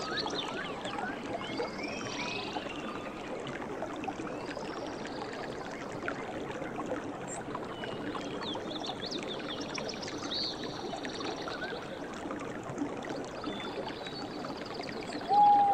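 Tropical forest ambience: many birds chirping and calling in short, quick rising and falling notes over a steady rushing background noise. A louder, short, steady-pitched call comes near the end.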